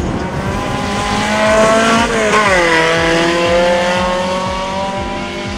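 4x4 drag vehicle's engine at full throttle down a dirt strip: the pitch climbs, drops sharply about two seconds in as it shifts gear, then climbs again.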